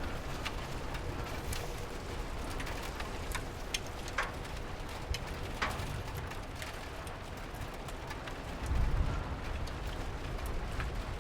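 Steady rain hiss with scattered single drips ticking, and a brief low rumble about nine seconds in.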